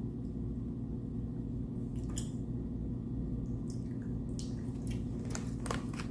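Overly wet masa dough squelching a few times as it is worked by hand, over a steady low hum; the dough is sloppy from too much water.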